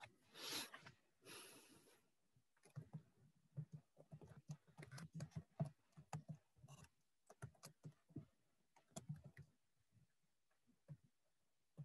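Faint typing on a computer keyboard: a run of irregular clicks starting about two and a half seconds in, after two short hisses at the start.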